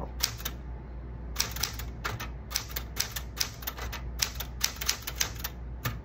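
Vintage manual portable typewriter being typed on: type bars clacking against the platen in quick irregular runs of keystrokes, with a short pause about a second in.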